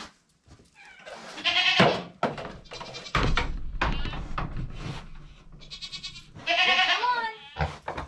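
Goats bleating, several separate calls with a wavering pitch, and a low rumble underneath partway through.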